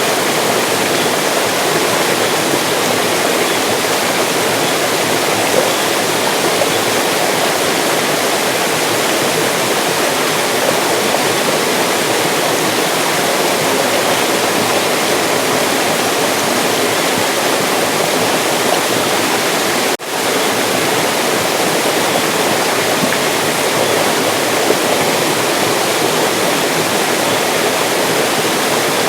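Mountain stream rushing steadily over rocks. About twenty seconds in, the sound drops out for a split second and comes straight back.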